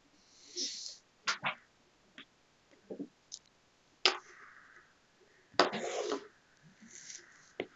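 Small toys being handled and knocked against a stone countertop, with a few sharp knocks and a larger clatter about six seconds in, and short breathy hisses between them.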